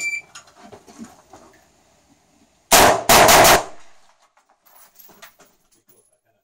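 The electronic shot timer's start beep cuts off right at the start. About three seconds later a semi-automatic AR-style rifle fires a fast string of several shots, all within a second.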